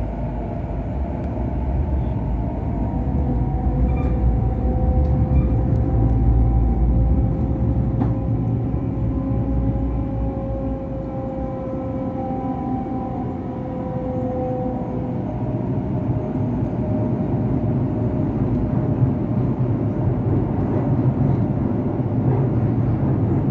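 Sydney Trains Waratah A set running, heard from inside the carriage: a steady rumble of wheels on rail with the whine of its Hitachi IGBT-VVVF traction motors, a few held tones that drift slightly in pitch and fade out about two-thirds of the way through.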